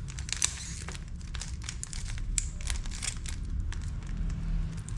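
Plastic 3×3 Rubik's cube being turned by hand: quick, irregular clicking and rattling of its layers as moves of an algorithm are made.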